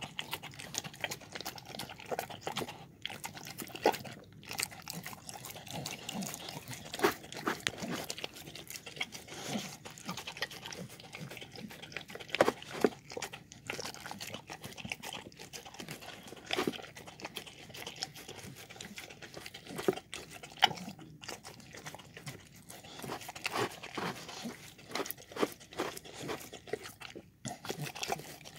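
A dog eating chicken, lentils, rice and wheat puffs from a bowl: irregular crunching and chewing, with sharp clicks scattered throughout.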